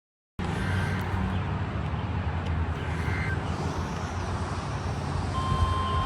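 A steady rumble and hiss, like the static of a radio receiver, with a few faint short beeps. About five seconds in, a single steady high tone starts and holds: the NOAA Weather Radio 1050 Hz warning alert tone that comes before a broadcast severe weather warning.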